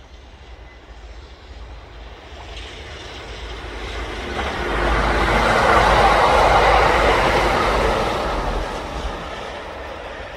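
Electric train running on rails, its rushing noise swelling to a peak about halfway through and then easing off.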